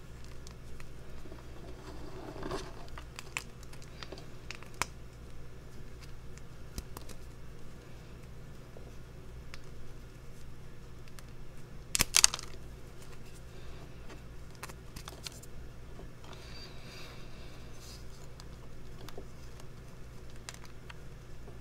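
Dyed gym chalk reforms crumbling and crunching between fingers: scattered small crackles, one louder crunch about twelve seconds in, and soft gritty rubbing of chalk powder.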